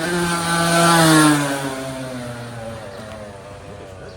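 Yamaha YZ85 dirt bike's two-stroke engine held at high revs, then falling in pitch and fading over about a second and a half.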